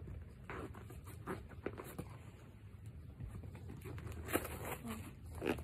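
Fingers and a knife scratching, scraping and picking at packing tape on a cardboard shipping box, a string of small scrapes and clicks with a couple of sharper clicks in the second half.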